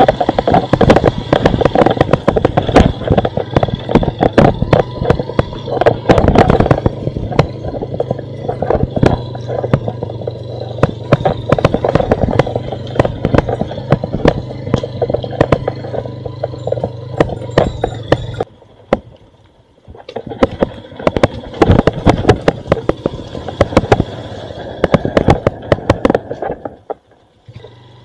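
Honda motorcycle engine running over a bumpy dirt track, with constant irregular clattering and knocks from the rough ride. The steady engine note drops away about two-thirds of the way through while the rattling goes on.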